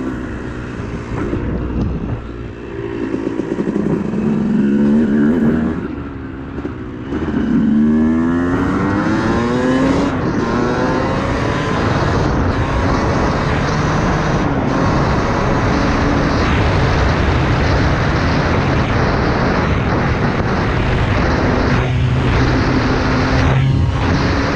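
Yamaha YZ250 two-stroke single-cylinder dirt bike engine, fitted with a 13 oz flywheel weight, revving up and down several times in the first ten seconds. It then runs hard and steady at high revs, loud, for the rest of the time.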